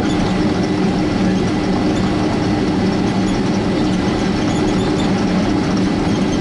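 Cabin noise of a Boeing 767-300 taxiing, heard inside the passenger cabin: the steady drone of its twin jet engines and airflow, with a constant low hum.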